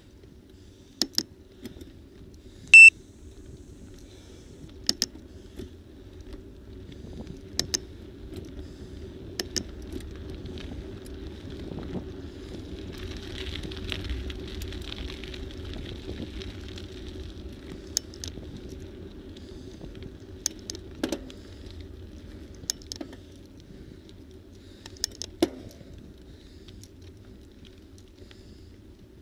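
Road and wind noise from a vehicle rolling along a paved road. The noise swells about halfway through and eases off again. Scattered sharp clicks run throughout, and a brief high-pitched tone about three seconds in is the loudest sound.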